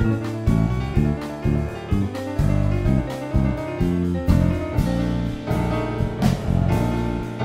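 Piano trio playing jazz-tango fusion: piano, bass and drum kit together, with a busy low bass line and cymbal strikes on the beat.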